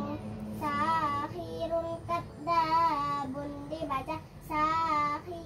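A child singing without accompaniment: three long phrases of held notes whose pitch wavers up and down.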